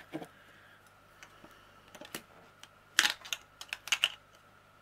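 Light clicks and taps of plastic diamond-painting storage containers and small tools being handled on a tabletop, in short irregular clusters, loudest about three seconds in and again around four seconds in.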